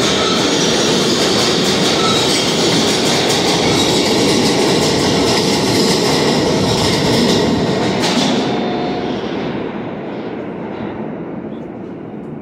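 New York City subway L train moving along the far track of an underground station: a loud, steady rumble and rattle of steel wheels on rail. About eight seconds in, the last car clears and the sound drops away and fades.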